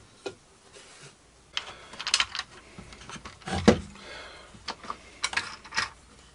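Scattered clicks, knocks and light rattles of hands handling the plywood and metal parts of a homemade benchtop planer, busier from about one and a half seconds in, with one louder knock a little past the middle.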